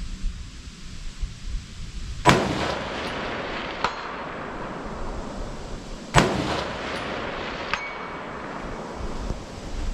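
Two precision rifle shots about four seconds apart, each echoing down the range. Each is followed about a second and a half later by the faint ding of the bullet striking a steel target, and the second ding rings briefly.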